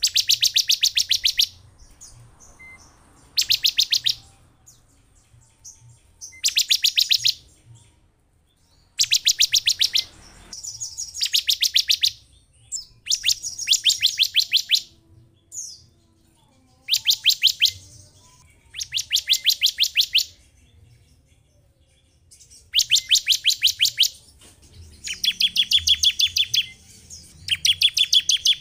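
Ciblek (bar-winged prinia) calling: repeated bursts of fast, dry ticking trill notes, each burst about a second long, about eleven of them with short pauses between.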